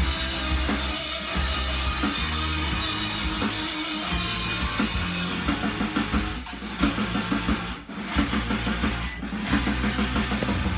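Rock music played from a vinyl record on a turntable: drums, bass and electric guitar, with a couple of short breaks in the band partway through.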